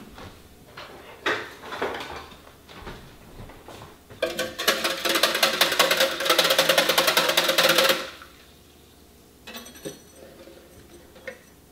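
Wire whisk beating salt into water in a clear plastic container: a rapid, even clatter of the wires against the plastic that starts about four seconds in and stops sharply about four seconds later. A few knocks and clicks of handling come before it. The brine is being mixed so that the salt dissolves.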